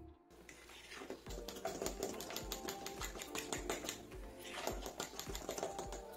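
Metal fork clinking and scraping against a glass mixing bowl in rapid, uneven clicks while stirring thick pancake batter, over background music with a steady beat.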